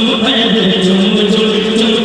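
A crowd of men chanting loudly together in a devotional zikr, voices held in unison over a regular beat.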